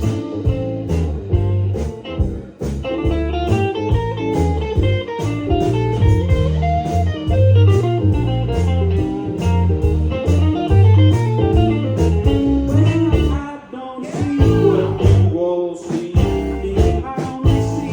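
Live band playing a song, electric guitar to the fore over a steady beat, with a brief drop in loudness about fourteen seconds in.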